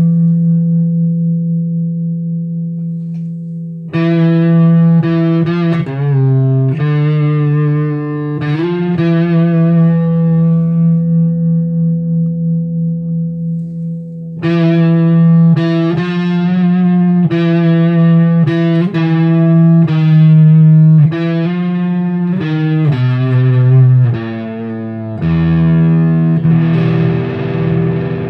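Electric guitar through the Little River Customs Stranger Things Fuzz Delay pedal and a Randall amp head: a chord rings and fades, a few chords are struck and left to sustain, then a run of chords is played. The tone turns grittier and noisier near the end.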